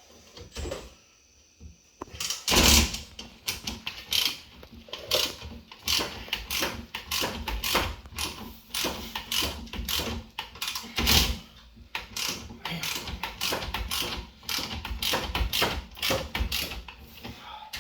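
Hand tools clicking and knocking on the metal parts of a car's brake caliper assembly, in quick irregular strokes, with a louder knock about two and a half seconds in and another about eleven seconds in.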